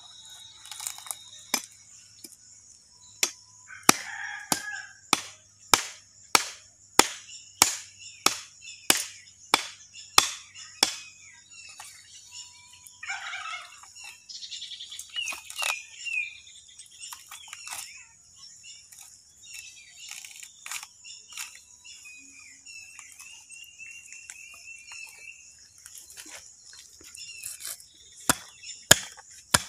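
A heavy chopping knife striking through a cow's head and skull in a run of sharp chops, about one and a half a second, which stop about halfway through, with a few more strikes near the end. Insects chirr steadily and birds call in the pause.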